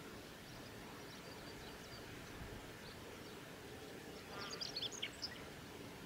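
Male chestnut-eared bunting singing one short, rapid phrase of high notes about four and a half seconds in, over a steady background hiss.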